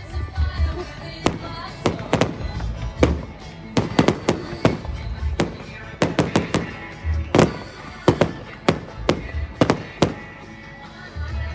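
Fireworks display going off: a rapid run of sharp bangs, about twenty across ten seconds, bunched in quick clusters, over music with a bass beat.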